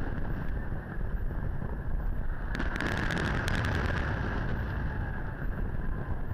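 Aerial fireworks going off: a low rumble of shell bursts, with a quick run of sharp crackling pops from about two and a half to three and a half seconds in. Wind buffets the microphone throughout.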